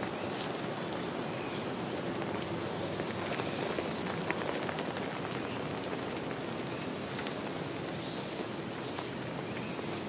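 Stream running over rocks below a small waterfall: a steady, even rush of water, with faint bird chirps here and there.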